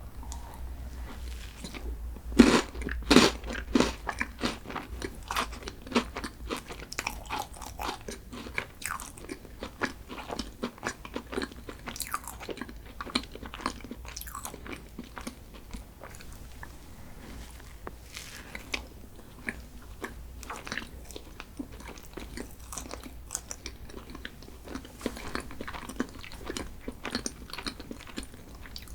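Close-miked eating of a crunchy chocolate dessert: two loud crisp bites about two and three seconds in, then steady crunchy chewing.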